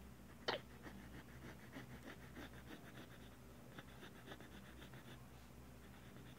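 Faint scratching of a pen tip drawing short strokes on graph paper, with one sharp click about half a second in, over a low steady hum.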